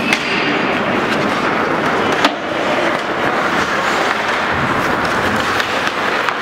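Ice hockey play: skate blades scraping and carving the ice in a steady scratchy hiss, with a clack of sticks at the faceoff near the start and a sharper, louder knock about two seconds in.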